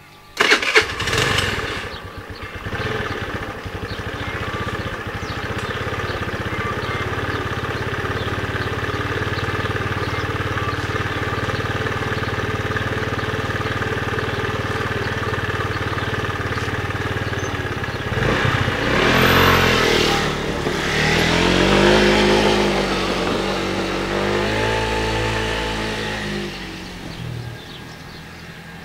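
A moped's 139QMB 50 cc four-stroke single-cylinder engine starts with a loud burst, then runs steadily. Its revs rise and fall from about eighteen seconds in, then it goes quieter near the end.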